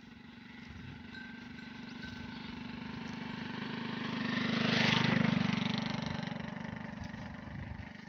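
A motor vehicle passing by, its engine hum growing louder to a peak about five seconds in, then fading away.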